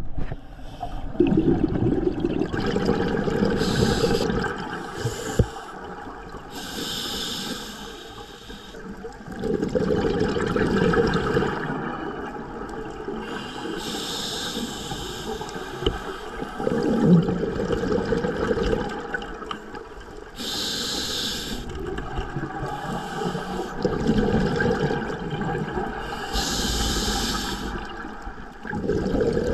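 A scuba diver breathing through an open-circuit regulator underwater: a short hiss of each inhalation and a longer bubbling rumble of each exhalation, repeating about every six to seven seconds, four or five breaths in all.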